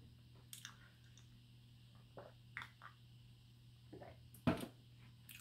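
Faint chewing and small mouth noises of a person eating a tea-dipped chocolate biscuit, with a few soft clicks scattered through and one slightly louder short noise about four and a half seconds in.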